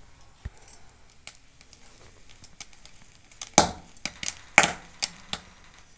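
Corn cobs roasting over glowing charcoal, with irregular sharp crackles and pops. The two loudest cracks come about halfway through and a second later, among lighter ticks.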